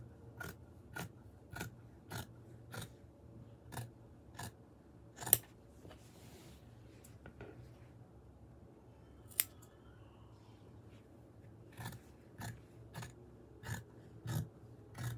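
Large fabric shears snipping through layered fabric, the blades closing in a steady run of about two clicks a second. The cutting stops for several seconds in the middle, with a single snip, then starts again near the end.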